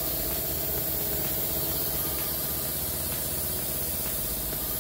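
Air compressor running steadily, a low pulsing motor hum under a hiss of compressed air, while it feeds a pressure-test rig at about 20 PSI.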